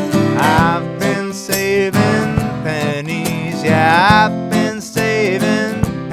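Country-style music: strummed acoustic guitar with a melody line that slides between notes above it.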